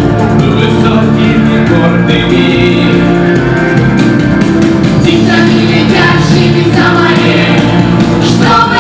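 A song with several voices singing together over a full instrumental backing.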